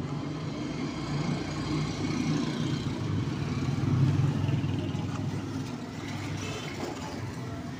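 A small 12-volt DC motor driving a plastic pump head, running steadily with a low hum and buzz that swells slightly about four seconds in.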